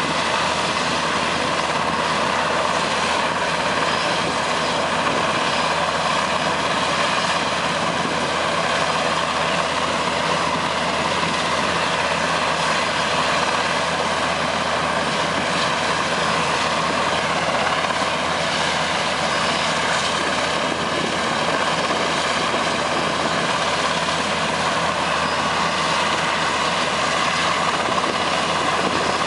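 Super Puma helicopter running on the ground with its main rotor turning: a steady drone of its twin turbine engines and rotor.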